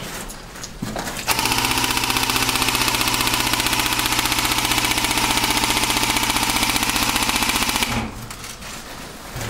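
AK-style airsoft electric rifle (AEG) firing one long full-auto burst: a rapid, even buzzing rattle of the gearbox cycling that starts about a second in and stops abruptly about six and a half seconds later.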